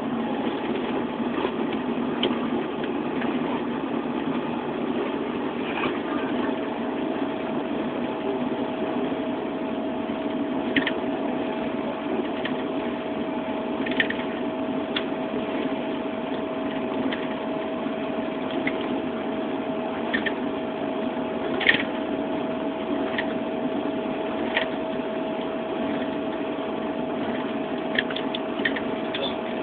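Steady engine and road noise heard from inside a moving vehicle, with a steady tone coming in about six seconds in and occasional light ticks and rattles.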